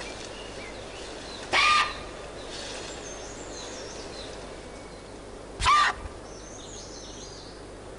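Giant panda cub giving two short calls about four seconds apart, crying out to its mother because it is hungry. Faint birdsong in the forest background.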